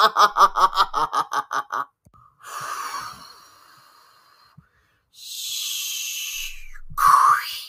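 Cartoon sound effects of ice cream being blown at a character: a quick string of short vocal sounds, then two hissing, spraying whooshes. A short, loud startled cry comes near the end.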